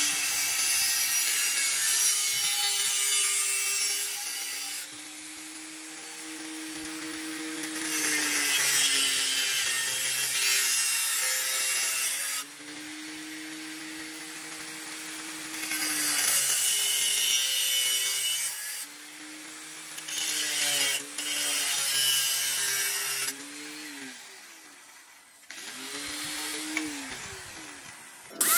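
Angle grinder with a thin cut-off disc cutting through thin-walled square steel tube in four harsh, hissing cuts, with the motor's whine running more quietly between them. Near the end the whine dips and rises as the motor slows and picks up again.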